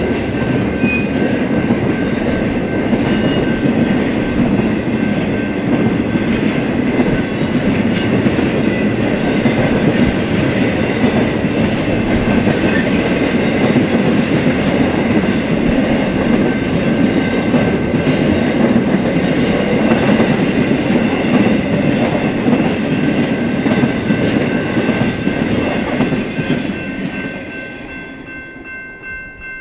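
BNSF freight train cars rolling past, a steady rumble with the clickety-clack of wheels over the rail joints, and a few faint steady high tones above it. The rolling noise fades away near the end, leaving the high tones.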